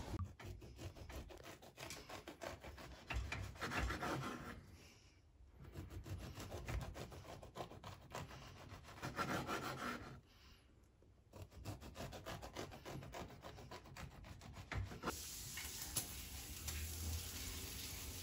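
Knife sawing back and forth through a loaf of multigrain bread on a wooden cutting board, in three runs of quick strokes with short pauses between. Near the end the strokes stop and a steady low hum takes over.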